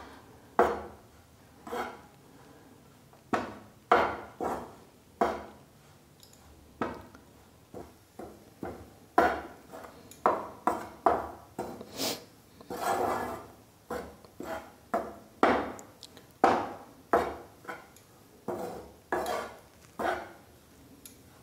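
Steel slotted spoon scraping and clinking against a frying pan as it stirs whole-wheat flour roasting in ghee. The strokes are short and irregular, coming roughly every half-second to a second, with one longer scrape about 13 seconds in.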